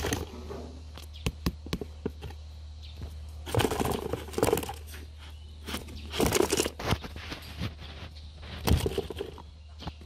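Irregular scrapes, crackles and clicks of a cardboard shipping box handled close to the microphone, with rustling from the grass and guinea pigs packed inside, in short clusters about four, six and nearly nine seconds in. A low steady hum runs underneath.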